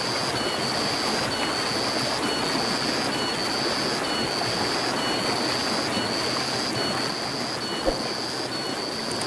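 Shallow stream rushing over rocks, a steady wash of water. A high, even note repeats a little more than once a second above it.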